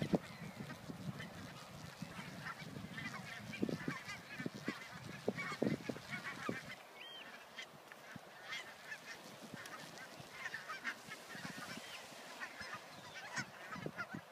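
A flock of Canada geese honking, many short calls overlapping, with a low rumble under the first half that dies away about halfway through.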